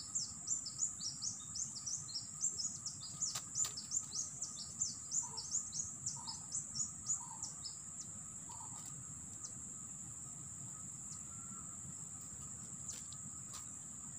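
A bird chirps rapidly, a run of high falling notes at about four a second, and stops about halfway through. Under it an insect keeps up a steady high-pitched drone, with a low rushing murmur from the flooded river.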